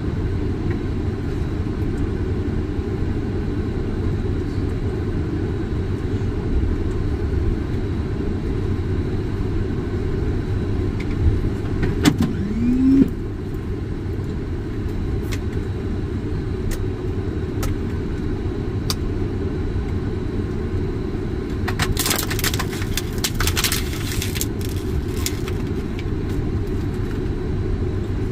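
Steady low rumble on a Boeing 747 flight deck as the aircraft taxis after landing. Scattered light clicks sound throughout, with a short rising tone a little before the middle and a brief hiss about three quarters of the way through.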